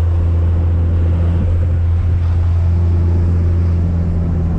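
Steady low engine drone and road noise heard from inside a pickup truck's cab while it drives along a road.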